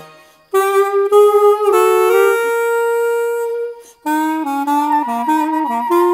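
Clarinet playing a blues melody: after a short pause a few notes lead into a long held note, then a quick breath about four seconds in and a run of faster, shorter notes.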